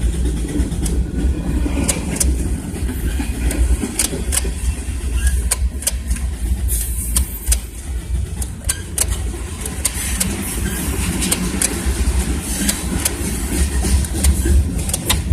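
2002 Toyota Corolla's 1.8-litre four-cylinder engine turning over on the starter without catching, a steady low churning with scattered sharp clicks: a crank-no-start fault.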